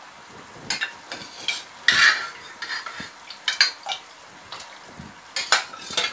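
Pre-boiled mutton pieces going into a steel pot of boiling masala: irregular metal clinks and scrapes of a utensil against the pot, with wet splats, the loudest clatter about two seconds in.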